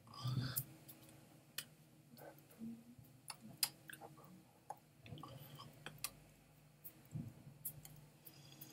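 Faint scattered clicks and soft taps of hands and clothing moving as a man gestures, with a few quiet mouth and breath sounds, the loudest just after the start.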